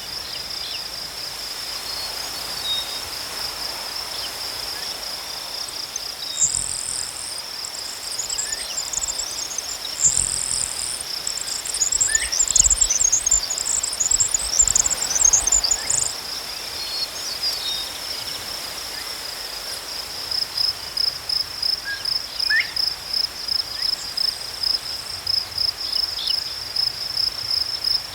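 Crickets chirping in a steady, high, pulsing trill. From about six to sixteen seconds in, a louder, higher, rapid chirping joins in, with a few short faint chirps scattered through. Near the end the chirping comes in even pulses, about two a second.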